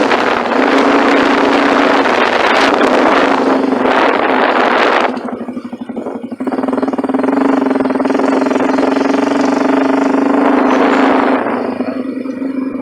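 Motorcycle engine running at a steady pitch under way, with a loud rushing noise over it that cuts off suddenly about five seconds in; the engine then holds steady again and eases off near the end.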